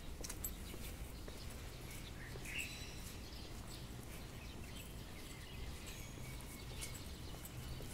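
Street ambience: a low steady rumble, with light footsteps on pavement as faint clicks and a bird chirping about two and a half seconds in.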